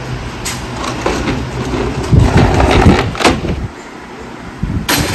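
Stacked plastic stools and metal-legged folding tables being shifted and set down on brick paving: irregular scraping, knocks and clatters, loudest about two to three seconds in, with another sharp knock near the end, over a low steady hum.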